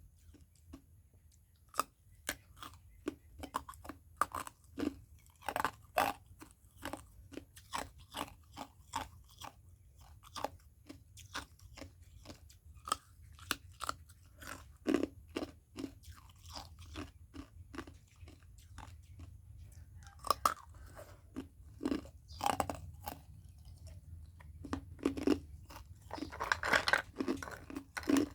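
Ice being crunched and chewed in the mouth: a long irregular string of sharp crunches, with a denser flurry near the end.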